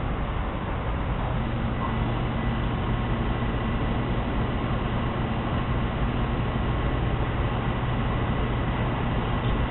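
Steady low rumbling noise, with a low hum coming in about a second in; no coughs or other sudden sounds stand out.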